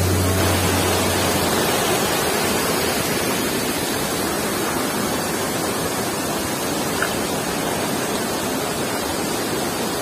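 Steady rushing of water from a small waterfall cascading over rock and running through a shallow stream, an even hiss with no change in level.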